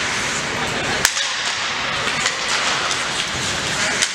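Ice hockey game in a rink: a steady noisy hiss of play on the ice, with two sharp clacks, about a second in and near the end, and a few lighter clicks between them.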